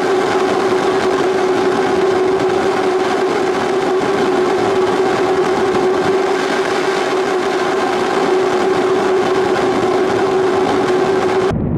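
Five-segment Space Launch System solid rocket booster firing in a static test: a loud, steady roar with a constant hum-like tone running through it. Near the end the sound switches abruptly to a duller, lower rumble.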